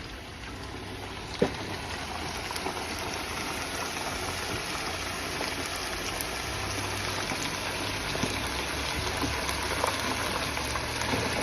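Steady sizzling hiss of food cooking at a street barbecue stall, growing gradually louder, with one sharp click about a second and a half in.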